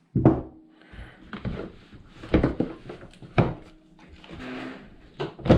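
Heavy steel porta power attachments being handled: several clunks and knocks as pieces are picked up and set down, with lighter clicks and a brief rustle between them.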